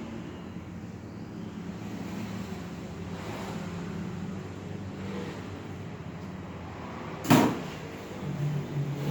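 Steady low background rumble, with one sharp, loud bang about seven seconds in.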